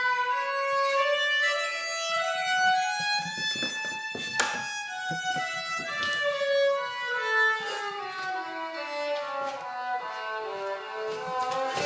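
Solo violin playing a flowing melody of sustained notes, the line stepping down through a run and climbing back up near the end.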